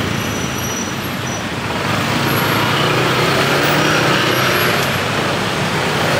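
Steady road traffic noise with vehicle engines running.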